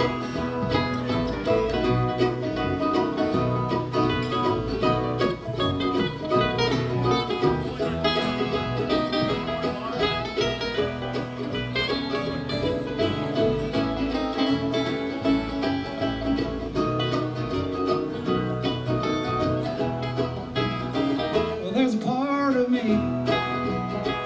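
Bluegrass band playing live, mostly instrumental: banjo and guitar picking over a steady bass line. A voice comes in singing near the end.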